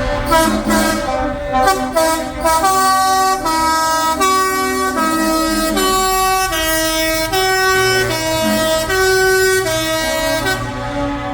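Musical air horn on a parade vehicle sounding a tune of short, buzzy notes that change pitch every half second or so, quicker at first and then held longer, over a low vehicle rumble.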